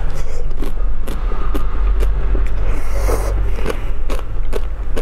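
Close-miked biting and chewing of a frozen black ice-cream bar: repeated sharp, irregular crackles as the frozen bar is bitten and worked in the mouth, over a steady low hum.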